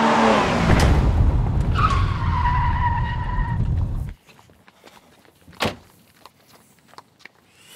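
A 1998 Ford Fiesta driving past at speed, its engine note falling in pitch, then its tyres squealing about two seconds in. The sound cuts off abruptly about four seconds in, leaving only faint clicks and a single sharp knock a moment later.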